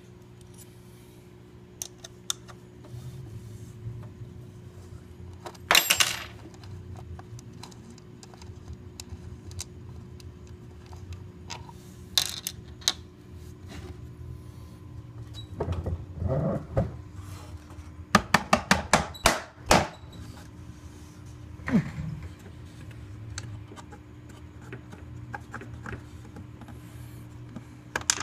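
Handling noise from working on the underside of a plastic-and-metal 3D printer case: scattered clicks and knocks, with a quick run of about eight clicks around two-thirds of the way in, over a steady low hum.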